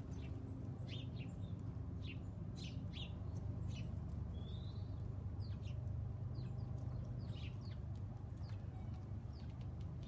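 Small songbirds chirping with short, high calls scattered through, several close together at times and one longer slurred call near the middle. A steady low hum runs underneath.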